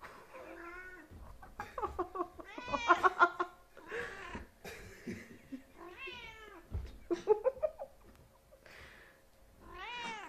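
Cats meowing repeatedly: a string of short calls that rise and fall, the loudest bunched together about three seconds in, with another near the end.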